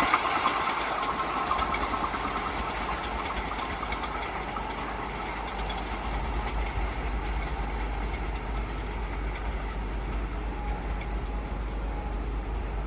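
Passenger express train running away along the track: the rumble and clatter of its coaches' wheels on the rails fade over the first couple of seconds, then carry on faint and steady.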